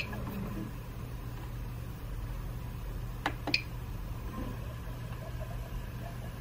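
Prusa i3 MK3S 3D printer running with a steady low hum, with a click at the start and two quick clicks about three and a half seconds in as its control knob is worked to lower the print head.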